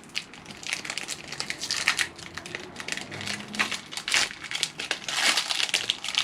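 Foil wrapper of a Pokémon card booster pack crinkling as it is opened and handled, in irregular crackly bursts.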